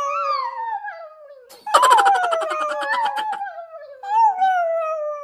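Chihuahua howling: three long drawn-out howls in a row, each falling in pitch, the middle one rough and raspy.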